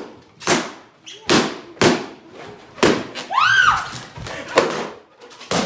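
Latex balloons bursting one after another as they are sat on: about six sharp pops, roughly a second apart. A brief high squeal rises and falls a little past halfway.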